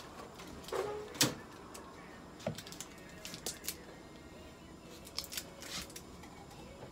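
Scattered small clicks and rustles of objects being handled at an exam table. The sharpest click comes about a second in, and lighter clusters follow near the middle and the end.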